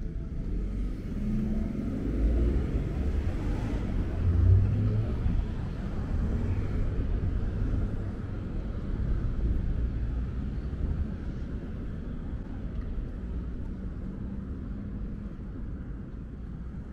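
Road traffic: vehicles passing on a city street as a low rumble, loudest a few seconds in, then settling into a steadier drone.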